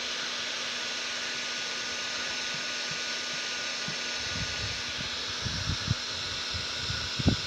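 Steady hiss of blowing air, with irregular low thumps and knocks from about halfway through.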